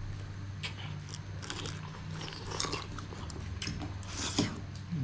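Close-up biting and chewing of a mouthful of fresh green chili and rice noodles, with many short crisp clicks and a noisier slurp-like burst about four seconds in as noodles are drawn into the mouth.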